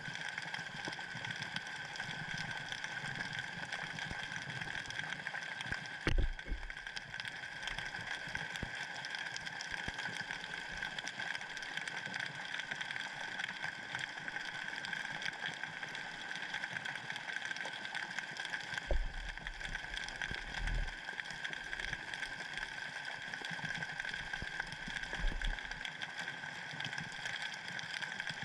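Underwater noise picked up by a submerged camera: a steady hiss with a high whine in it, broken by a few low thumps, one about six seconds in, a cluster around nineteen to twenty-one seconds and one near twenty-five seconds.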